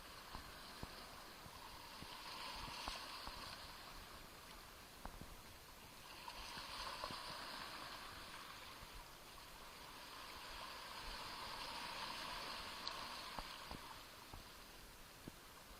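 Small Black Sea waves washing onto the shore, a soft hiss that swells and fades three times, with faint scattered ticks.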